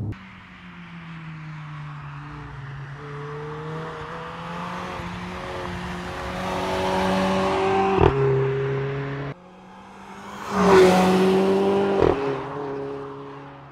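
Mercedes-AMG CLA 45's turbocharged four-cylinder engine pulling hard on a track, its note climbing, then a sharp crack and a drop in pitch at an upshift about eight seconds in. A second run swells to its loudest as the car comes past about eleven seconds in, with another crack on a shift near the end.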